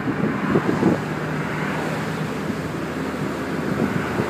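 Mazda MX-5 Miata cruising in fifth gear, heard from inside the cabin: a steady engine hum under tyre and wind noise, with a brief louder sound just under a second in.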